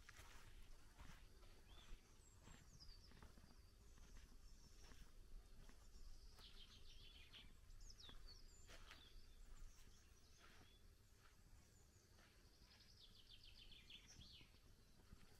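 Faint songbird song: short whistled phrases that glide up and down, and fast trills about six seconds in and again near the end, over a low steady rumble, with scattered soft taps.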